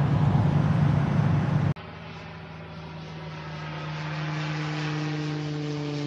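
Loud road and engine roar inside a van's cabin while driving through a road tunnel, cut off suddenly about two seconds in. Then a small propeller airplane flying overhead: a steady engine drone that grows louder as it approaches.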